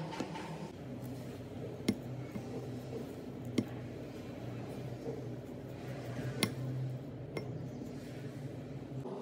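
Spatula stirring and folding a soft flour dough in a glass mixing bowl, knocking against the glass with four sharp clinks, over a steady low hum.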